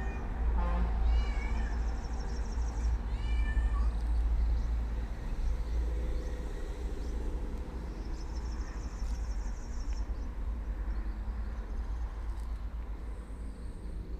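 A cat meowing twice in the first few seconds, over a steady deep rumble of wind or a vehicle.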